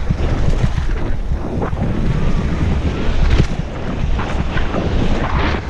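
Wind buffeting a helmet-mounted action camera's microphone at speed, over the rumble of mountain bike tyres on a dirt trail, with scattered knocks and rattles from the bike over bumps.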